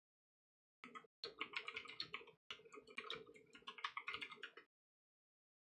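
Rapid typing on a computer keyboard: a quick run of key clicks starting about a second in and lasting about four seconds, with a couple of very short breaks.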